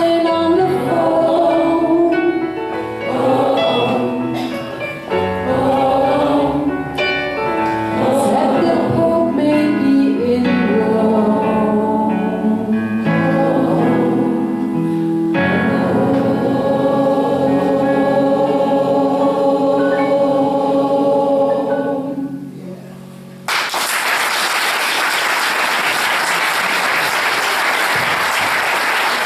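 Choir singing, ending on a long held chord. A second or so after the chord stops, near the end, the audience breaks into applause.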